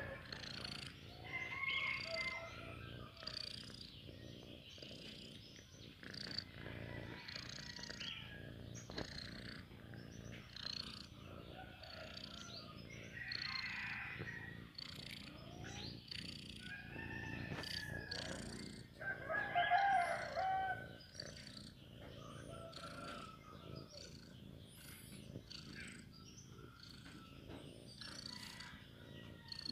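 Domestic cat purring softly as it is stroked, with brief higher-pitched calls over it now and then.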